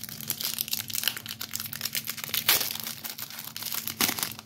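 Wrapper of a 2023 Upper Deck AEW trading card pack crinkling as it is torn open, a dense run of small crackles with the loudest about halfway through.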